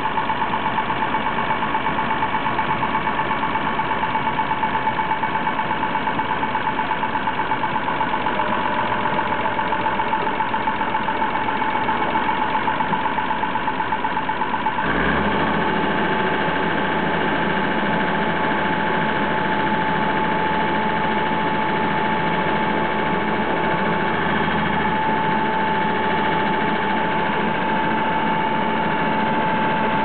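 Massey-Ferguson MF400 crawler bulldozer's engine idling with a fast, even pulse; about halfway through the sound changes abruptly to a smoother, steadier run with more low rumble.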